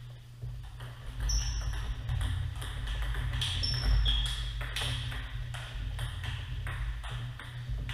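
Table tennis rally: the ball clicking off the paddles and bouncing on the table, repeated clicks in an irregular rhythm. A few short high squeaks, probably sneakers on the wooden floor, and a low rumble sit underneath.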